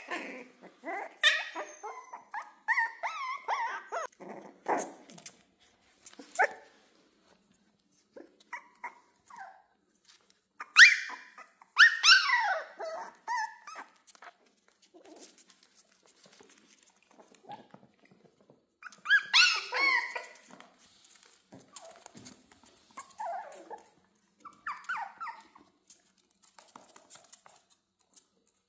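Excited puppies barking in short, high-pitched bursts as they play, with quiet gaps between; the loudest burst comes a little before the middle.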